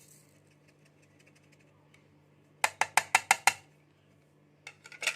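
Quick sharp taps of a kitchen utensil against a bowl, about six in under a second, then a few more near the end, as powdered spices are knocked into a bowl of fish.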